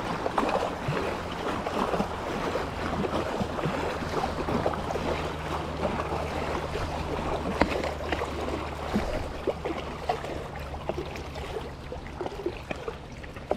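Water running and trickling, with many small splashy clicks over a steady low hum.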